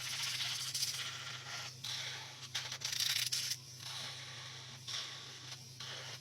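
Nail file or buffer scratching over gel nail tips in uneven strokes, with short pauses between them, as the nails are prepared for painting.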